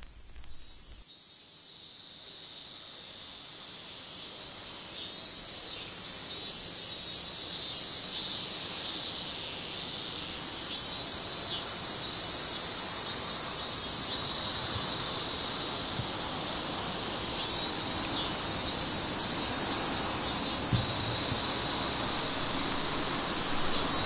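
Insects shrilling in a steady high chorus, with stuttering pulsed phrases that come and go over it. It grows gradually louder.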